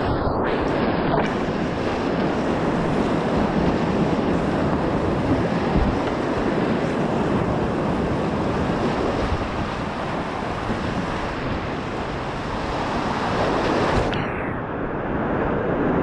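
Whitewater rapids rushing steadily around a kayak, with wind buffeting the microphone. About two seconds before the end the sound turns muffled as the highs drop away.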